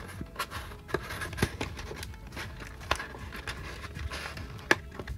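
Foil booster packs being handled and pulled out of a cardboard Pokémon booster box: light rustling with a few sharp clicks.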